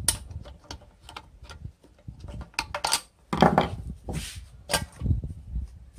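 Screwdriver scraping and clicking against the metal inside a throttle body port as it works around built-up contaminant: an irregular run of clicks and short scrapes, the loudest a little past the middle.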